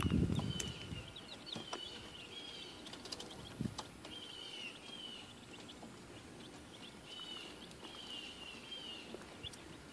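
Newly hatched chickens peeping: a steady string of short chirps, a few each second. There are scattered light clicks and a soft low bump right at the start.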